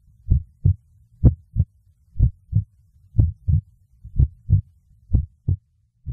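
Heartbeat sound effect: low double thumps, lub-dub, about once a second over a faint low hum.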